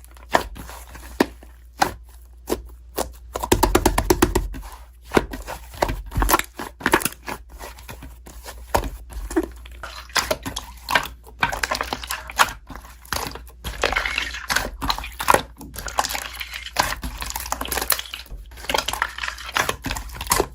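Slime being squeezed and poked by hand, making irregular sticky pops and crackles, with a quick run of clicks about four seconds in.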